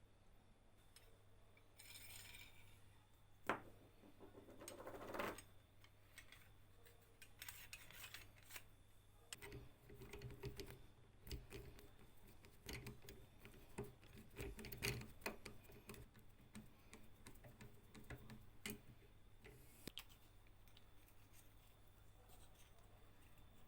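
Small metal parts of an old Archimedes drill handled by hand: scattered light clicks, taps and short scrapes, with a sharper knock about three and a half seconds in.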